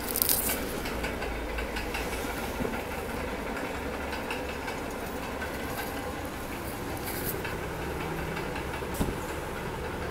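Steady low rumble and hiss of background noise, with a few faint rustles and a soft knock about nine seconds in.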